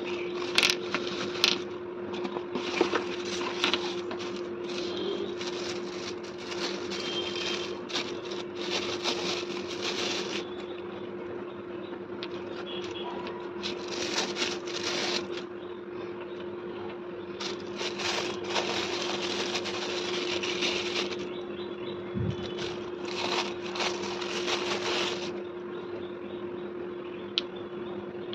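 Plastic wrapping crinkling and rustling in several stretches as small figurines are unwrapped by hand, with sharp clicks as they are handled and set down. A steady low hum runs underneath.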